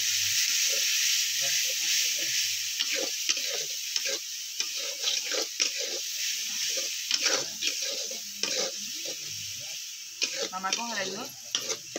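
Food sizzling in a hot wok while a metal spatula scrapes and clinks against the pan as it is stirred. The sizzle is loudest at first and slowly dies down.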